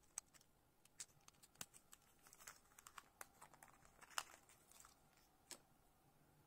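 Quiet crinkling of a small clear plastic bag and scattered light clicks of small plastic parts and a tiny circuit board being handled, with one sharper click about four seconds in.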